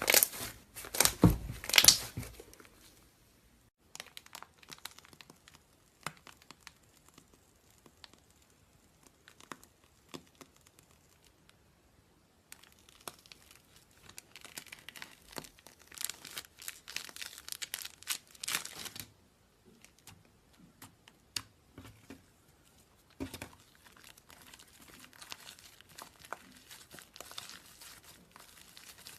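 Slime being handled, stretched, pressed and pulled apart, giving crinkly, tearing crackles. They are loudest in the first two seconds and come again in a longer run of crackling about halfway through.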